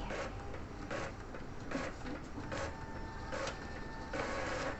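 Epson L3110 all-in-one printer running a copy job: a regular mechanical stroke about every 0.8 seconds, with a steady thin whine joining about halfway through.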